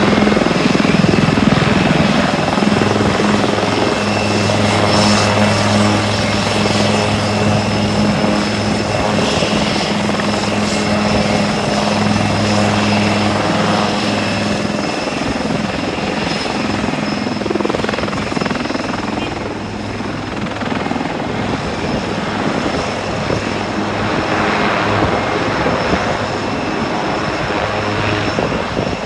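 HAL Light Combat Helicopter running on the ground with rotors turning: its twin Shakti turboshafts give a steady high turbine whine over the rotor noise. The low hum weakens about halfway through.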